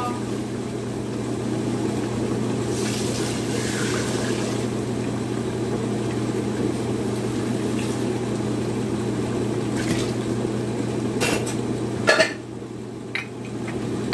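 Water being poured into an Instant Pot's stainless steel inner pot over dry rice, a steady rushing. About twelve seconds in there are a couple of clinks of dishware and the rushing stops.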